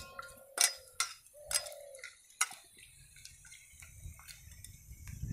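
A few sharp, separate clinks of steel cooking pots and utensils in the first half, one ringing on briefly, then only faint low background noise.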